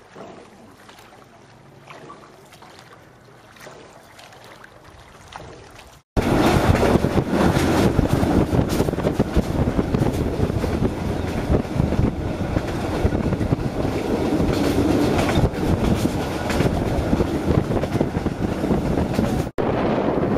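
Quiet faint ambience, then after a sudden cut about six seconds in, the loud steady rumbling noise of a moving vehicle, with a brief break near the end.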